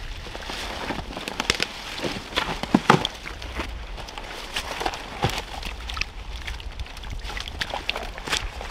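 Hands-on work in snowy brush and mud: scattered cracks and snaps of twigs and branches, crunching footsteps, and wooden knocks as a wooden pallet is handled, the loudest knocks about three seconds in.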